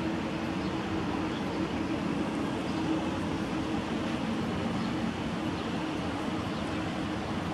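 Steady outdoor background noise with a constant low hum running under it and a few faint high ticks.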